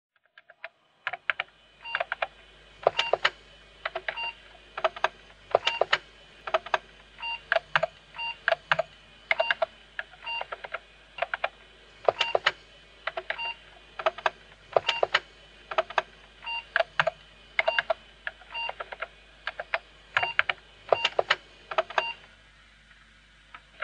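An irregular run of sharp clicks, each with a short beep, about two or three a second. It stops shortly before the end.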